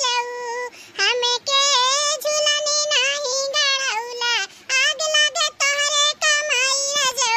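High-pitched, pitch-shifted cartoon voice in a sing-song delivery, with some notes held like singing.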